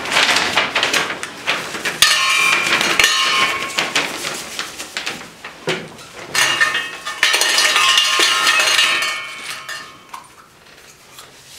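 Draw lots being stirred around inside a silver metal trophy cup: rattling with bright metallic clinking and ringing, in two longer bouts, dying down near the end.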